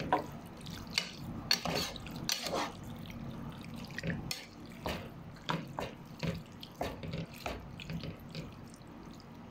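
Sliced squid being stirred with a spatula in a pan of soy sauce and vinegar: wet sloshing and squelching, with irregular clicks of the spatula against the pan, growing quieter toward the end.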